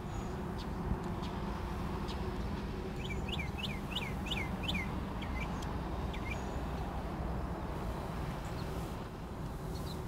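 A small songbird calling outdoors, with a quick run of about seven descending chirps a few seconds in and scattered short high notes around it. A steady low rumble runs underneath.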